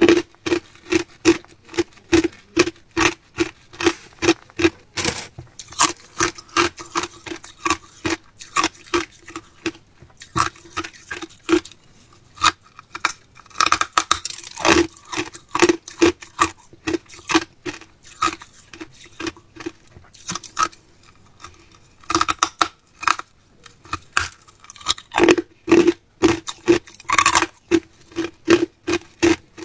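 Hard clear ice being bitten and chewed, a rapid run of sharp crunches, about three a second. There are brief pauses a little before the middle and again about two-thirds of the way through.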